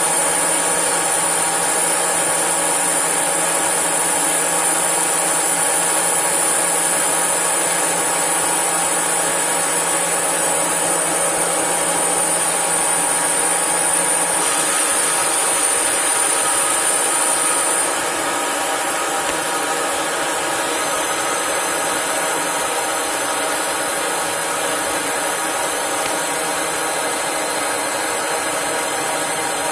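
CNC lathe cutting a metal velocity stack: a steady machine whine with the scrape of the cutting tool. The high whine shifts about fifteen seconds in and the sound drops slightly in level a few seconds later.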